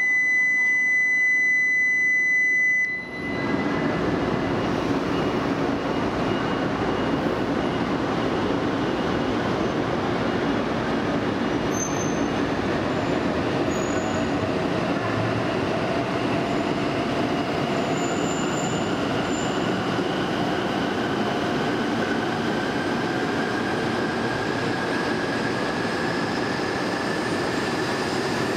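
A platform departure buzzer sounds one steady tone and cuts off about three seconds in. Then an E2 series Shinkansen pulls out of the station, with wheel and rail noise and a traction motor whine that slowly rises in pitch as the train gathers speed.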